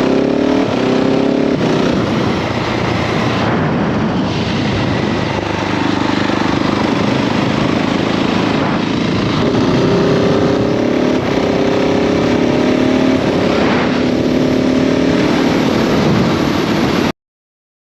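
KTM 690 SMC R single-cylinder engine pulling a motorcycle along, with heavy wind rush on the microphone. The engine note breaks briefly at about 1.5, 3.5 and 9 seconds in, like gear changes, and climbs slowly in pitch between about 10 and 13 seconds. The sound cuts off abruptly near the end.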